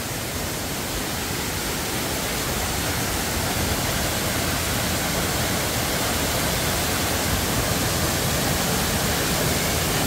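Waterfall gushing out through a gap beneath a huge rock slab and crashing onto the granite below in heavy spray: a steady rush of water that grows slightly louder.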